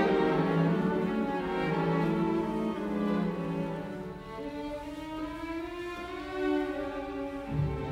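Slow background music played on bowed strings like violin and cello, with long held notes. It gets softer in the middle and swells again near the end.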